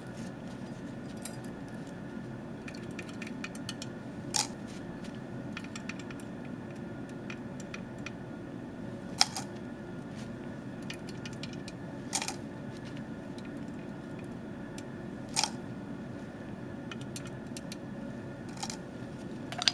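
Steady low room hum with a handful of sharp, light clicks spaced a few seconds apart, from small lab items being handled.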